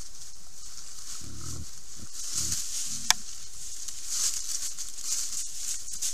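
Wild boar giving three short, low grunts between about one and three seconds in while rooting in dry leaf litter, with rustling of leaves over a steady hiss. A single sharp click comes about three seconds in.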